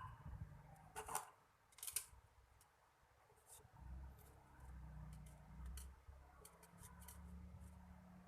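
Two short, sharp snips about a second apart, then faint scattered clicks, as a monofilament fishing rig is trimmed and handled.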